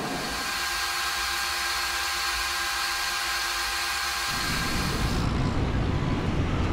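Steady loud hiss of a paint spray gun. About four seconds in, the low rumble of a heavy truck's engine comes in, and the hiss stops a second later.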